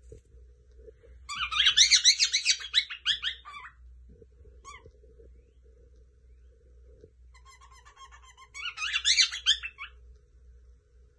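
Cockatiel chattering in two bursts of rapid high chirps, the first about a second in and lasting some two seconds, the second near the end, with a few single chirps between.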